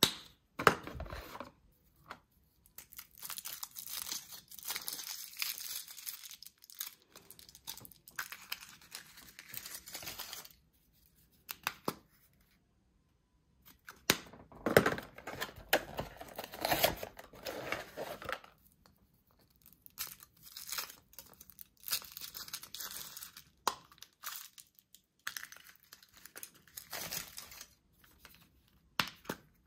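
Foil wrappers of Kinder Surprise chocolate eggs being torn open and crinkled by hand, in bursts of crackling separated by short pauses.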